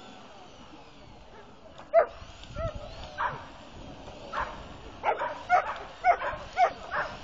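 A dog barking in short, high yelps: a few spaced apart from about two seconds in, then a quicker run of about six near the end.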